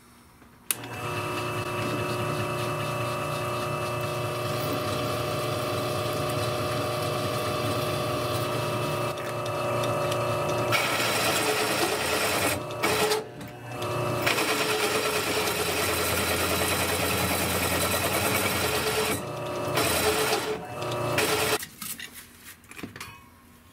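A drill press starts about a second in and runs a 1⅛-inch carbide-tipped hole cutter into quarter-inch steel bar, making a steady motor hum. Partway through, a rougher grinding of the cutter biting the steel joins in. The sound drops out briefly a couple of times and stops shortly before the end.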